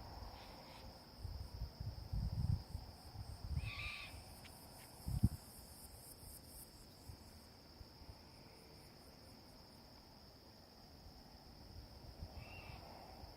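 A steady high-pitched trill of night insects, with an unidentified animal giving a short, harsh call twice: about four seconds in and again near the end. A few dull low thumps fall in the first half, the sharpest about five seconds in.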